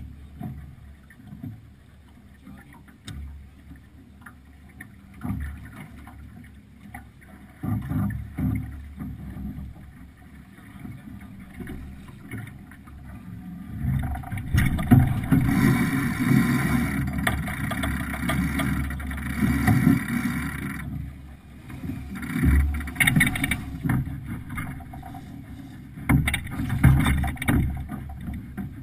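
Wind and water noise aboard a sailing yacht under way: a gusty rumbling rush that grows clearly louder about halfway through.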